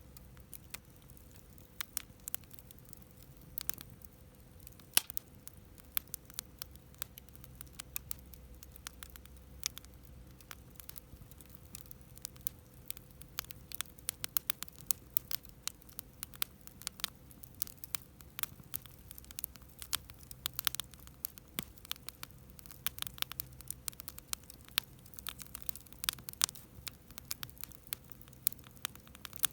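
Wood campfire crackling, with irregular sharp pops and snaps that come thicker in the second half, over a faint steady hum.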